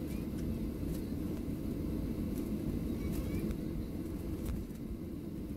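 Cabin noise of a Boeing 737-700 taxiing: a steady low rumble from its CFM56-7B engines at idle thrust and the wheels rolling on the taxiway, with a few faint clicks.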